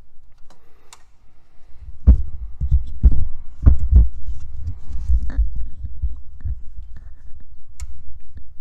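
The 1964 Buick LeSabre's V8 engine is cranked on the starter, a low, uneven thumping that starts about two seconds in. The engine does not catch and run.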